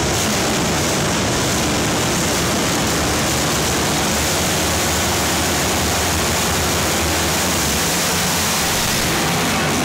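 A pack of racing ATV engines running together, a loud, steady, dense engine noise.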